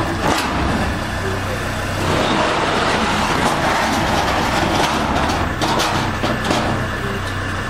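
Car engine running, a steady low hum with a few sharp knocks. The engine has a spun connecting-rod bearing, the cause of its knocking.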